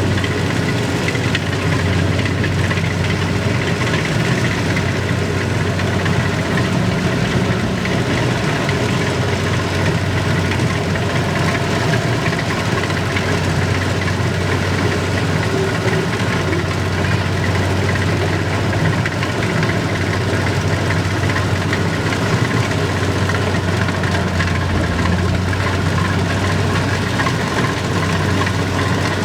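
An engine running steadily at a constant speed, with a strong, even low hum and no change in pitch.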